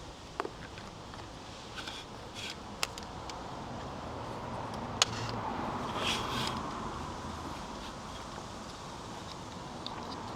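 Scattered sharp clicks and light knocks from the metal arms and clamps of a bike rack being adjusted as a bicycle is fitted onto it, with a short rustling stretch about two thirds of the way through over a steady outdoor background.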